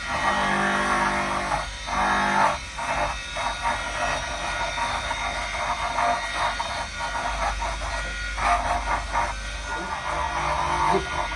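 Flexible-shaft rotary tool running, its burr grinding into a small wooden carving in short irregular bites, over background music.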